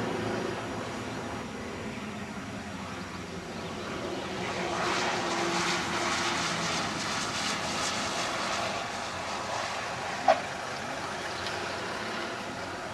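Propeller engine of a light airplane droning steadily, growing louder about five seconds in and easing off again. A brief sharp squeak about ten seconds in is the loudest moment.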